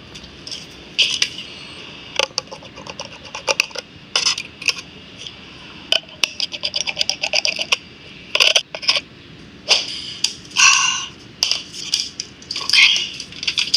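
Small repair tools clicking, tapping and scraping on hard phone parts: a busy run of quick sharp clicks and short scrapes, uneven in spacing.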